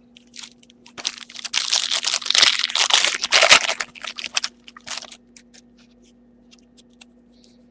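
Wrapper of a pack of football trading cards torn open and crinkled by hand: a dense run of crackling for about three and a half seconds, then a few scattered crinkles, and quiet after about five seconds.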